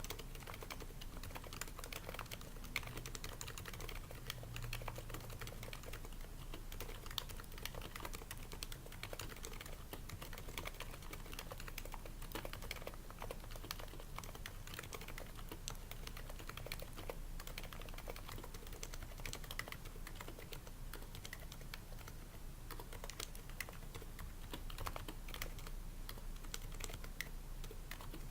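Continuous typing on an HHKB Pro 2 keyboard with Topre switches, fitted with o-rings to quieten the keystrokes, sliders running on lubed rails, and the case lined with shelf liner to absorb sound: a steady, unbroken stream of keystrokes.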